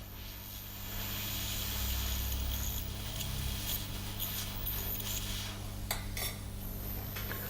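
Hot air rework gun blowing a steady airy hiss while heating a part off an iPhone 6s logic board, over a constant low electrical hum, with a few light clicks near the end.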